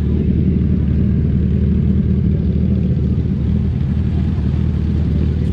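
Several motorcycle engines running steadily, loud and low-pitched.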